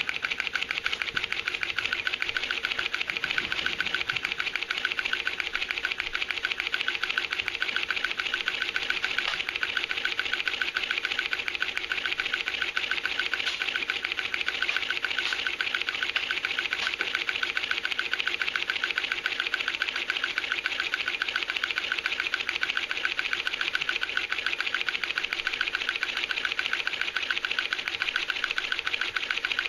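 Small 3D-printed piston air pump driven by a 380 DC motor on 5 V USB power, running steadily with a rapid, even mechanical chatter from its piston strokes as it pumps air.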